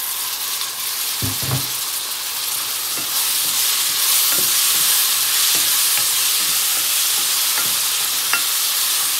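Beef chunks, onions and freshly added diced tomatoes sizzling in a hot pot while being stirred with a wooden spoon, the spoon knocking and scraping against the pot; a dull thump a little over a second in, and the sizzle grows louder about four seconds in.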